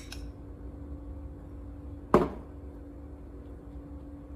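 A glass bowl set down on a granite countertop: one sharp knock about two seconds in, with a short ring, over a faint steady hum.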